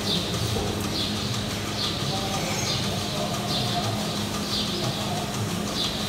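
Milking-machine pulsators on a rotary dairy platform hiss in a regular rhythm about once a second, over a steady low hum of the shed's running machinery.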